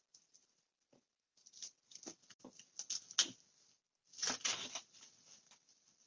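Plastic cling wrap crinkling and rustling as it is cut with a knife and pressed over a bowl, in scattered short bursts, the loudest a little over four seconds in.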